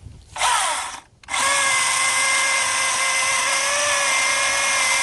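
Battery-powered Milwaukee M18 FUEL 16-inch brushless chainsaw: a short blip of the trigger that winds down, a brief pause, then the motor and chain running steadily at full speed with a high whine.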